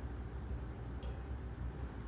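Steady low background rumble, with a single faint light click about halfway through.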